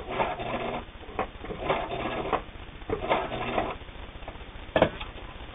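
Pfaff Tiptronic 1171 electronic sewing machine sewing a basting stitch in three short runs, each under a second, then stopping. A single sharp click comes near the end.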